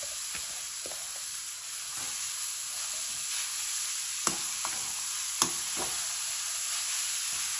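Shredded turnip and onion sizzling in hot oil in a metal kadhai, a steady hiss, while a perforated metal spoon stirs it. A few scrapes and clinks of the spoon against the pan stand out, the sharpest about four and five and a half seconds in.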